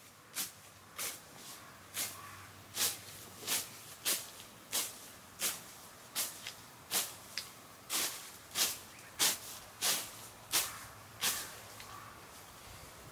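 Hand sickle cutting weeds and grass: a steady run of short swishing cuts, about one and a half a second, which stop near the end.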